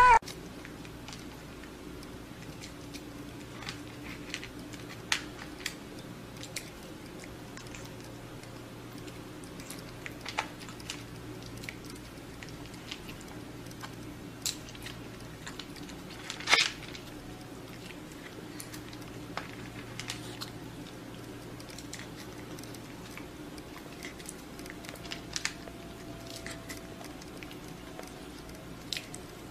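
Scattered small clicks and taps from a cat being hand-fed with chopsticks, over a steady low room hum, with one louder tap about halfway through.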